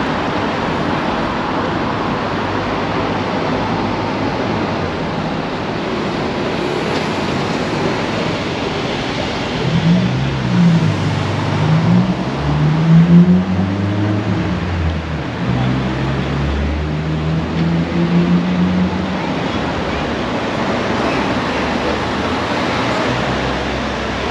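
Steady town-street noise of traffic. From about ten seconds in, a louder sound with a pitch that bends up and down passes close by for around nine seconds, loudest near the middle.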